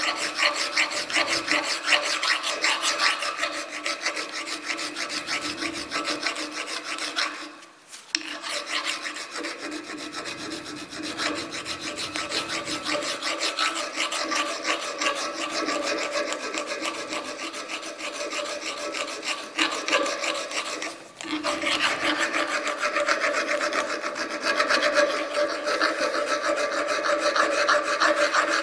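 Nicholson fine-cut round chainsaw file rasping in quick back-and-forth strokes inside the eye of a steel hammer head clamped in a vise, with a steady ringing tone under the strokes. The filing pauses briefly twice, about eight and twenty-one seconds in.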